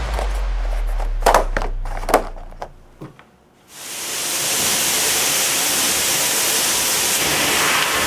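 A low music note fades out with a few sharp clicks. From about four seconds in, a loud, steady hiss of factory machinery and air starts up around a plastic-container forming press.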